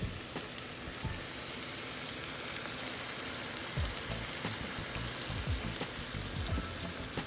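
Ground beef with diced peppers and onions sizzling in a skillet as beef broth is poured in and starts to bubble: a steady hiss.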